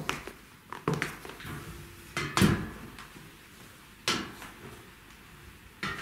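High-heeled pumps knocking on ladder steps as someone climbs: five separate knocks, roughly one every second and a half, the loudest about two and a half seconds in.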